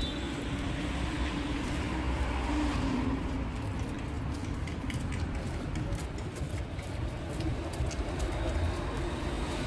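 Steady low rumble of motor vehicle noise.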